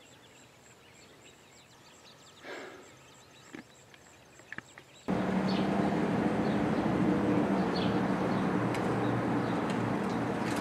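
Faint outdoor quiet, cut off abruptly about halfway through by steady vehicle and traffic noise with a low engine hum.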